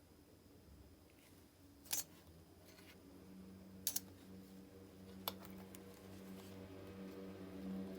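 Small hard parts being handled: a sharp click about two seconds in, a quick double click near four seconds and another click a little after five seconds, over a faint steady hum.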